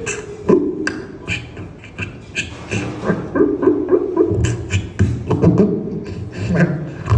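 Mouth-made sound effects in a beatboxing style: rapid clicks and pops over held, hummed vocal tones, in an uneven rhythm.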